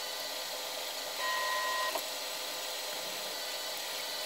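Steady background hiss with one short electronic beep about a second in, a steady tone lasting under a second.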